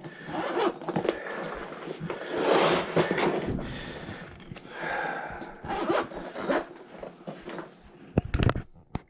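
Irregular rustling and scraping handling noises, ending with a few sharp clicks or knocks.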